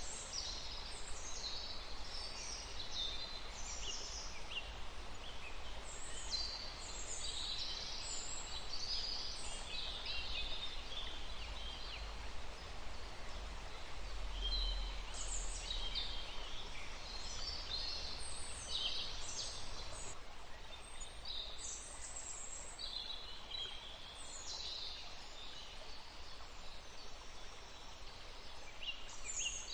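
Many small birds chirping and singing in quick, high, overlapping notes, over a steady background hiss.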